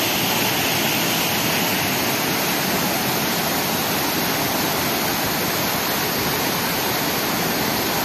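Waterfall water rushing: a loud, steady, unbroken noise of falling water.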